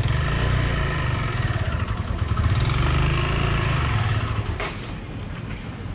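Suzuki GZ150-A's single-cylinder four-stroke engine under throttle as the motorcycle rides off at low speed. The engine rises twice and eases off about four and a half seconds in.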